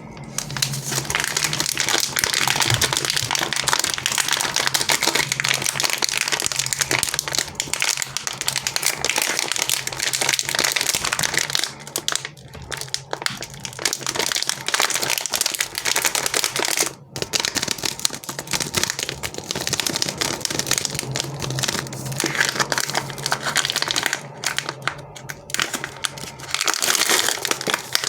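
Chocolate and sweet wrappers crinkling continuously as they are handled and unwrapped, with brief pauses about twelve and seventeen seconds in.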